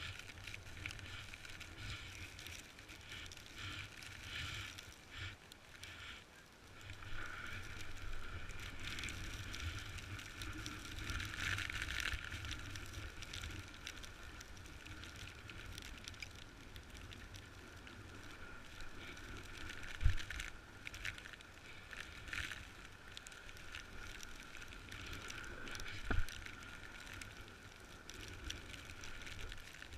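Snowboard sliding and scraping over snow, a hiss that swells and fades with each turn, over a low rumble of wind buffeting. Two sharp knocks stand out, about twenty and twenty-six seconds in.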